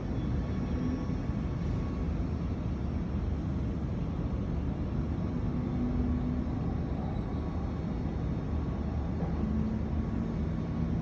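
Steady low rumble of vehicle engines, with a faint engine hum that swells for a couple of seconds around the middle and again near the end.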